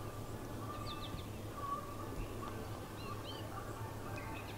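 Wild songbirds chirping faintly, short scattered chirps and whistles, over a low steady hum.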